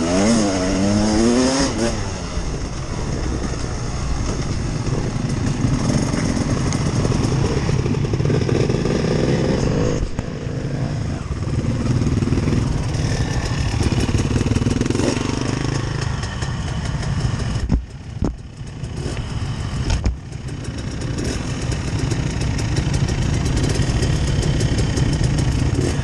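Dirt bike engines running: the rider's own motorcycle revs up and down at first while riding the trail, then runs more steadily at low speed among other bikes. About two-thirds of the way through, the sound drops away sharply twice, each time only briefly.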